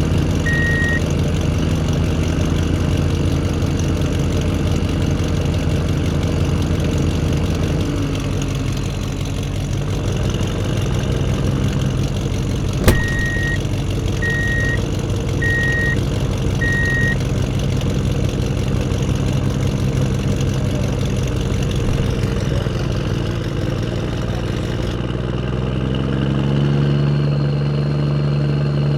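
Truck engine idling steadily, with a reversing alarm beeping: a couple of beeps at the start, then a sharp click and four more beeps about thirteen seconds in. Near the end the engine sound switches abruptly to a different, deeper running tone.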